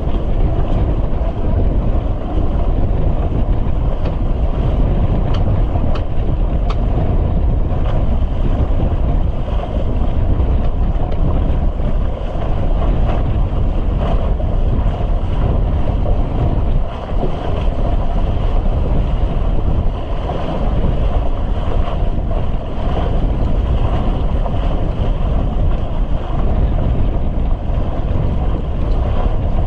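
Gale-force wind blasting across the microphone, with rushing sea water, aboard a sailboat in a squall. A steady, loud, low rumbling noise throughout.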